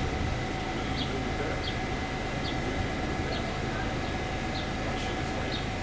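A New York City subway shuttle train standing at the platform with its equipment running: a steady hum with a constant whine over it. Faint short bird chirps come now and then.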